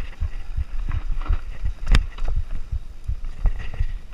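Nukeproof Mega mountain bike rattling down a rough downhill trail, with a fast run of low thuds from the tyres and suspension hitting roots and rocks. One sharp, loud knock comes about two seconds in.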